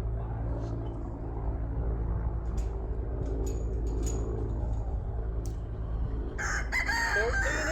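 A steady low engine-like hum runs throughout, with a few light clicks in the middle, and about six and a half seconds in a rooster crows, one long call that rises and falls.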